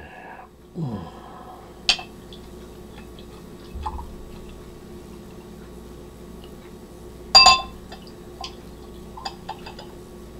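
Belgian-style ale poured from a bottle into a stemmed snifter glass, a steady trickling pour. A sharp click about two seconds in, a loud ringing glass clink about seven seconds in, and a few small clinks near the end.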